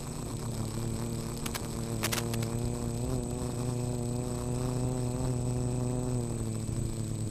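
Brushless motors and propellers of a small quadcopter (Turnigy Aerodrive SK3 2822-1275 motors with 8045 props) humming steadily in flight, heard through an onboard microphone, the pitch wavering slightly. A thin steady high whine runs underneath, and a few brief crackles come about two seconds in.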